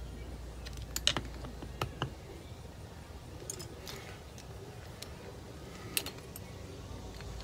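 Scattered small metallic clicks and taps from a screwdriver working the float-bowl screws of a small outboard carburetor and the metal carburetor being handled. There are two sharp clicks about a second in, more near two seconds, and one near six seconds, over a low steady hum.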